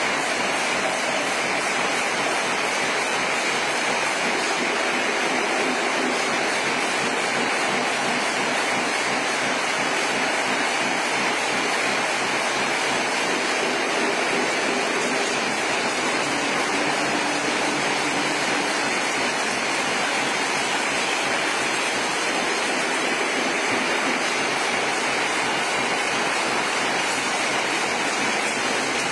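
Aerosol tin can vacuum leak-testing machine running: a steady, loud rushing noise with a faint low hum underneath.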